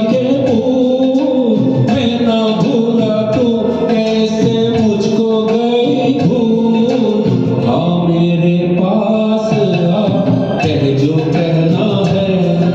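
Karaoke rendition of a Hindi film song: a backing track playing, with a male voice singing over it.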